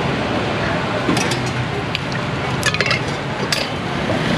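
Metal kitchen utensils clinking against steel pots and bowls several times, in small clusters about a second in and near three seconds, over a steady background rush.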